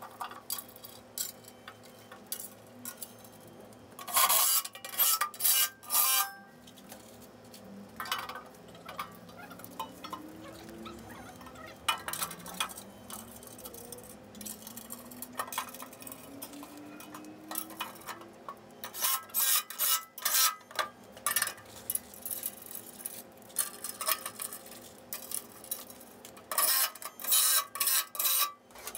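Steel brackets and bolts clinking and rattling as a pool table's steel leg frame is bolted together, with short bursts of a cordless impact driver running bolts in, the last burst near the end.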